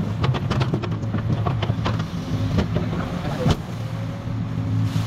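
Excavator diesel engine running steadily, with a quick, irregular run of metallic clanks and knocks through the first three and a half seconds.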